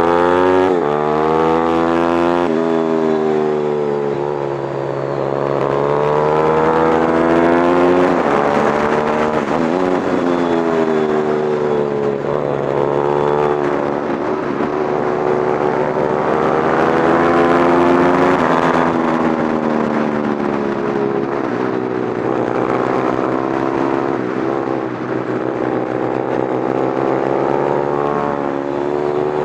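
Small motorcycle engine heard on board at racing speed, its pitch climbing hard under acceleration and then dropping sharply several times as the rider brakes and shifts for corners.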